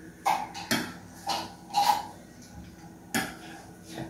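Metal spoon clinking against a ceramic bowl while stirring a thick cream mixture: about five separate clinks, each with a short ring.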